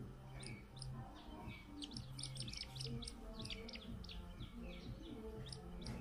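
Downy raptor chicks begging with rapid, high, downward-sliding chirps in quick clusters, busiest about two to three seconds in. Background music with slow sustained low notes runs underneath.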